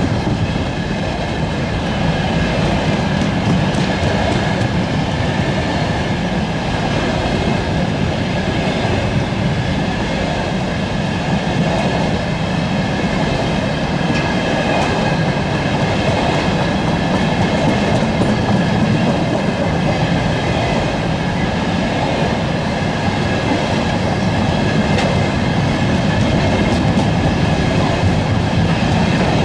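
A long freight train of covered hopper wagons rolling past steadily, the wheels rumbling and clattering over the rails, with a thin steady squeal from the wheels.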